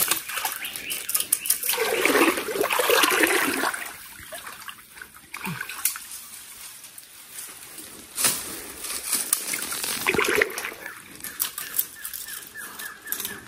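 Water splashing and sloshing as a hooked trairão (giant trahira) thrashes in a shallow creek while it is brought in. The loudest, longest stretch of splashing is about two to four seconds in, followed by a few single sharp splashes.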